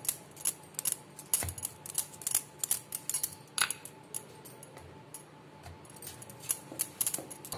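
Metal bangles clinking and jingling irregularly on a wrist as hands shape and press a ball of dough on a wooden rolling board, with a few soft taps on the board.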